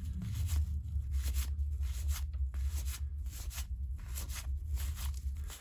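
Cardboard 1985 Topps baseball cards sliding against one another as a stack is thumbed through by hand: a quick run of short papery swipes, over a low steady hum.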